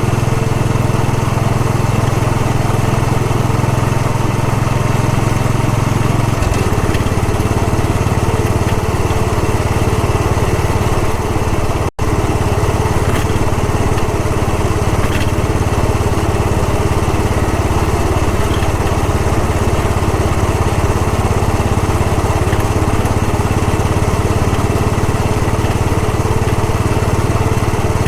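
Royal Enfield Bullet 500's single-cylinder four-stroke engine running steadily under way, its low note dropping about six seconds in. A brief break in the sound comes near twelve seconds.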